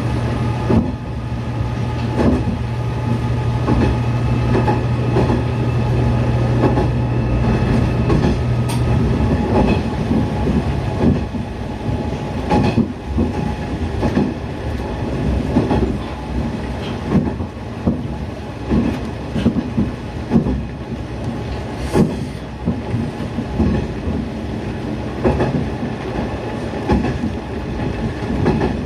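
Niigata Transys NDC diesel railcar running along the line, heard from inside the car: a steady low engine note that stops about nine seconds in, and the wheels clicking over rail joints.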